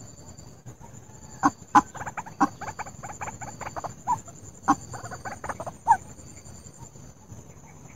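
White-breasted waterhen calling: a fast run of short repeated notes that starts about a second and a half in and stops about six seconds in, with a few louder sharp calls standing out.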